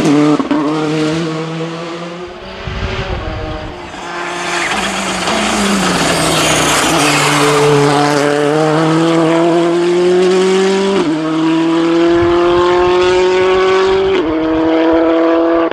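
Rally car engines under hard acceleration. The pitch climbs steadily through each gear and drops sharply at the upshifts, twice in the later part.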